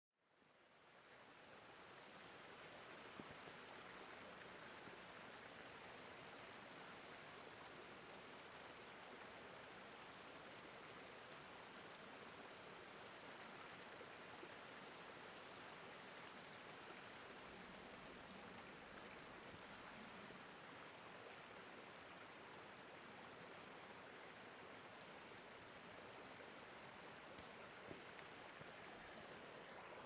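Small forest stream rushing over rocks: a quiet, steady, even rush of water that fades in over the first second or two.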